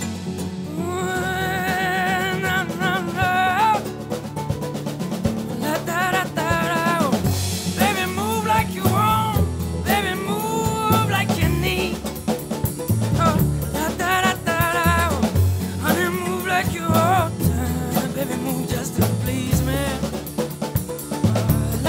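Background music: a song with a drum kit and a wavering lead melody.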